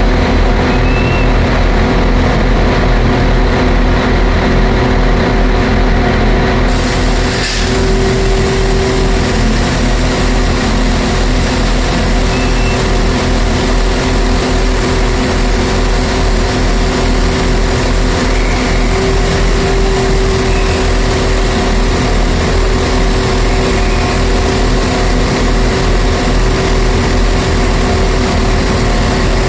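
A train's engine running steadily at the platform, a loud constant hum with several steady tones under it. About seven seconds in a broad hiss joins and stays.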